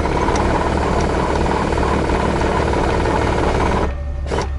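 Electric trailer tongue jack motor running steadily for about four seconds, then cutting off abruptly, as it moves the trailer tongue to set the hitch head's angle.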